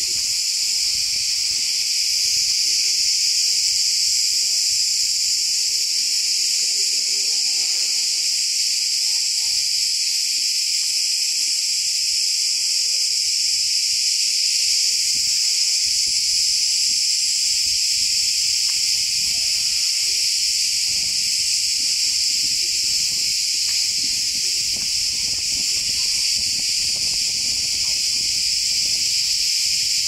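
A dense chorus of many cicadas singing in the pine trees: a very loud, steady, shrill buzz that never breaks.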